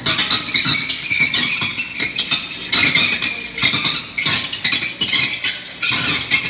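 Live electronic noise music from a tabletop rig of effects boxes and a mixer: a dense, shifting mass of crackling and clattering with bright, hissy highs and little low end.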